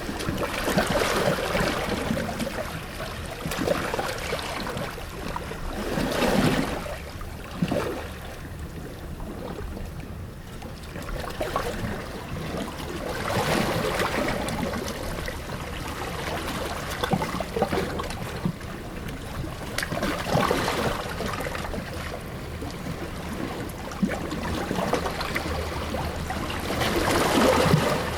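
Sea waves breaking against rocks, a steady rushing wash with a louder surge about every seven seconds.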